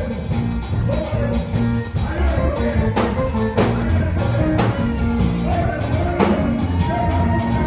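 Band music with a heavy bass line and drum kit, with a few sharp drum and cymbal hits partway through.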